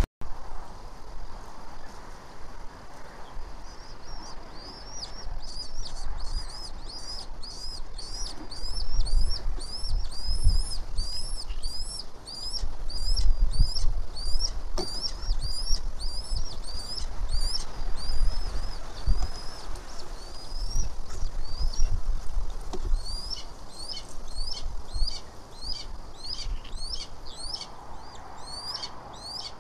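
A red-tailed hawk nestling a day out of the egg, begging with a steady run of high, upward-hooked peeps, two or three a second. The peeps start a few seconds in and thin out briefly past the middle. Low rumbling noise runs underneath.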